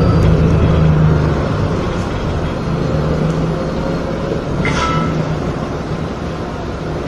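Opening of a karaoke backing track before the vocals come in, under a loud, steady low rumble. There is a short knock about four and a half seconds in.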